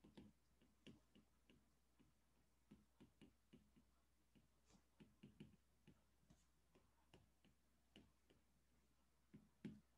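Faint, irregular ticks and taps of a stylus on a tablet's glass screen as words are handwritten, against near silence.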